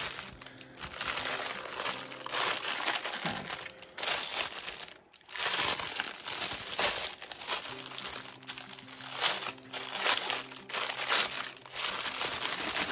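Clear plastic cellophane wrap crinkling and rustling as it is pulled off a bundle of small bagged diamond-painting drills. It comes in irregular bursts, with a brief lull about five seconds in.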